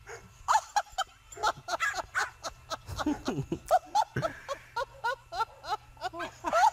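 Dog yipping in a rapid run of short, high barks, about four a second, with a few lower calls in the middle.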